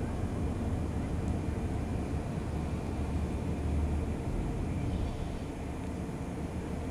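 Outdoor background ambience: a steady low rumble with no distinct events.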